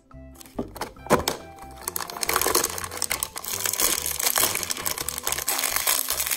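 Crinkling of an iridescent foil wrapper being pulled open by hand: a few sharp crackles at first, then dense, continuous crinkling from about two seconds in. Background music with low bass notes plays underneath.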